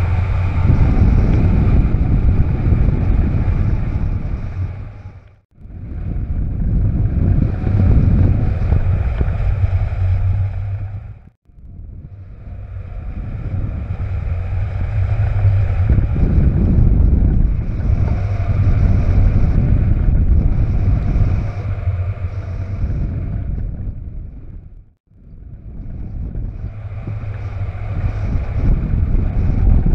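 Airflow buffeting the microphone of a camera mounted on a hang glider in flight: a loud, low rushing wind noise. It cuts out briefly three times, about five seconds in, near the middle and near the end.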